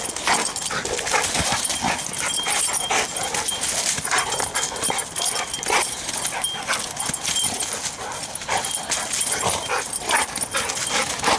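Two dogs play-fighting, giving short vocal sounds amid scuffling of paws and bodies in wet leaves.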